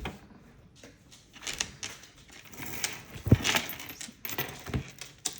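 Costume jewelry chains and bracelets clinking and rattling as they are handled, with irregular small clicks and a louder knock a little over halfway through.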